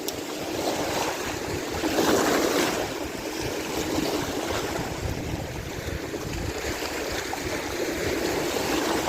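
Wind buffeting the microphone over a steady wash of lake waves lapping along a dam.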